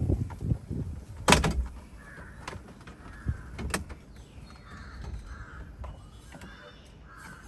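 Plastic dashboard trim clips snapping loose as a car's centre console panel is pulled free: two sharp snaps, about a second in and again near four seconds in.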